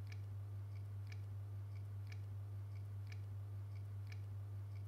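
Quiet room tone: a steady low electrical hum with faint, even ticking about twice a second, alternating stronger and weaker ticks.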